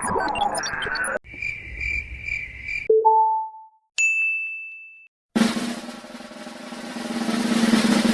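A string of separate short sound effects: a pulsing high beep, two quick short tones, a single ringing ding, then a drum roll that swells louder and cuts off.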